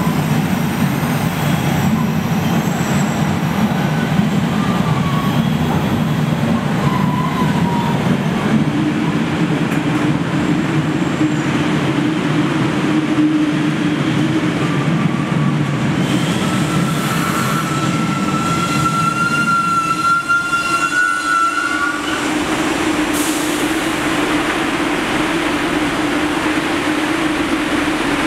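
MBTA Red Line subway train pulling into an underground station: a steady rumble, with high squeals from about eight seconds in. Around twenty-two seconds in the rumble stops as the train halts, leaving a steady hum, and a short hiss follows a second later.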